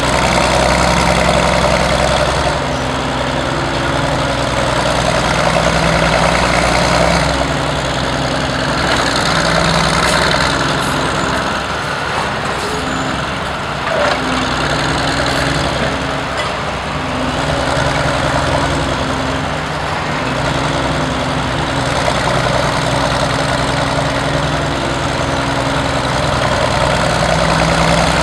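Northwest cable-operated power shovel's engine running hard as the shovel digs and swings, its note rising and falling every few seconds as the load changes, over the clatter of the machinery.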